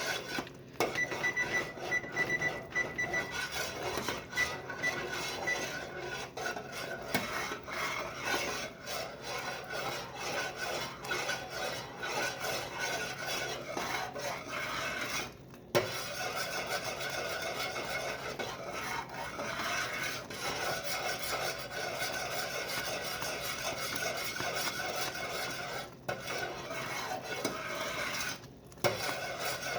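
A spoon stirring and scraping around the bottom of a pot of fudge base (butter, sugar and evaporated milk) kept at a rolling boil, a continuous rasping scrape with two brief pauses. In the first few seconds a kitchen timer gives short runs of high beeps.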